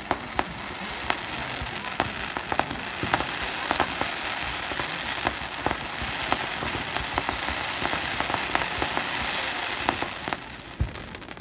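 Fireworks going off: a steady hiss shot through with many sharp pops. It dies down about ten seconds in, with a single low thump just before the end.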